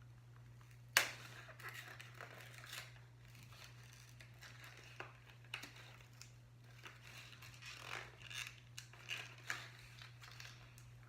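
A LEGO pen kit's packaging being opened by hand: a sharp snap about a second in, then scattered rustling, crinkling and small clicks as the box is handled.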